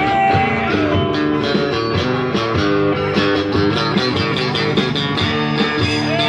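Live band playing an instrumental passage between sung lines, led by guitar with a steady beat behind it.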